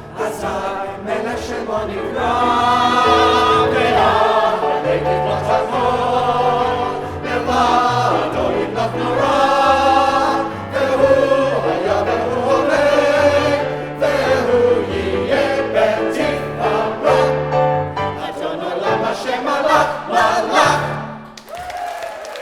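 Choir singing with instrumental accompaniment under steady low bass notes, the song closing on a final chord about 21 seconds in.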